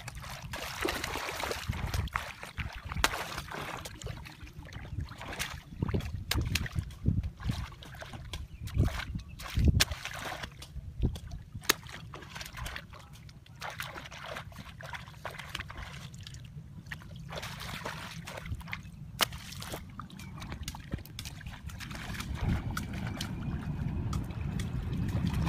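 Water sloshing and splashing as people wade and grope in shallow muddy water, with many irregular sharp splashes and knocks over a low rumble that grows louder near the end.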